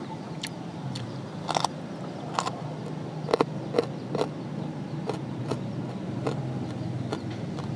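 A person eating, with irregular short wet clicks and smacks of chewing, loudest a few seconds in. A steady low hum runs underneath.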